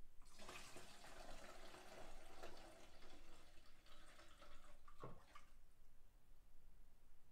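Molasses dissolved in water pouring from a glass jar through a funnel into a gallon jug, a steady liquid pour lasting about five seconds. It ends with a single knock.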